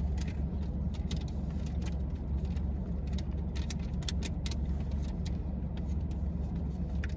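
Steady low rumble of a car heard from inside the cabin, with scattered clicks and scrapes of plastic spoons and Blizzard cups being handled.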